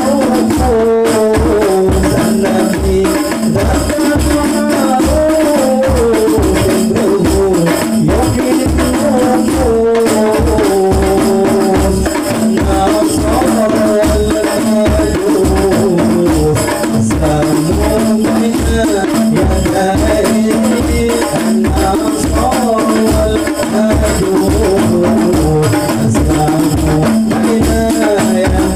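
Hadroh music: rebana frame drums beat a steady rhythm while a man sings a sholawat melody into a microphone.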